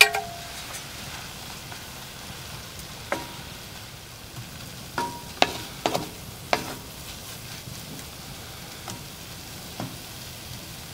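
Onions, peppers and ground spices frying in a cast-iron pot, the spices being toasted, with a steady sizzle. A spatula stirs and knocks against the pot: a ringing knock at the start, another about three seconds in, and a cluster of knocks between about five and seven seconds in.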